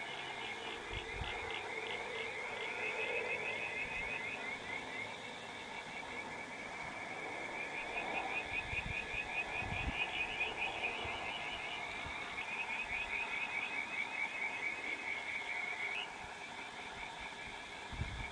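A chorus of frogs calling, a steady fast trilling of high-pitched pulses that drops slightly in level near the end.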